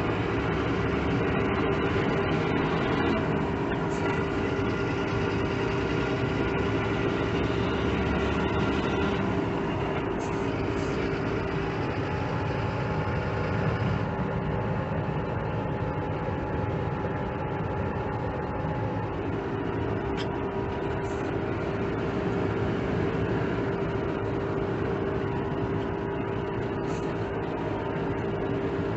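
Dump truck's diesel engine running steadily under way, heard from inside the cab, with a constant engine hum and road noise.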